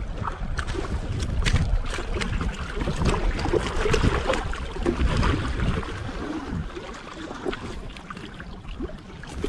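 Wind rumbling on the microphone over water lapping and splashing around a small fishing boat, with scattered light knocks.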